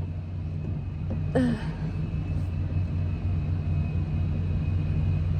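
Truck engine running steadily under load as it tows a car, a low drone growing gradually louder.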